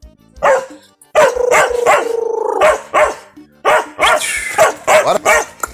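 A tethered dog barking excitedly: short barks, one long drawn-out call about a second in, then a quick run of barks near the end.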